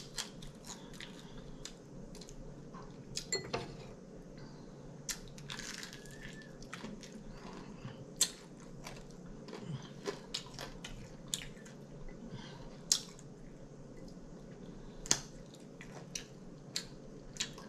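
Close-up chewing and crunching of crispy air-fried chicken wings, with irregular sharp crunches and mouth clicks.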